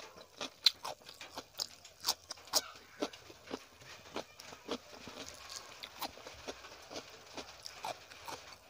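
Close-miked eating sounds: irregular wet mouth clicks, lip smacks and chewing as rice and chicken curry are eaten by hand, with fingers working the rice on the plate.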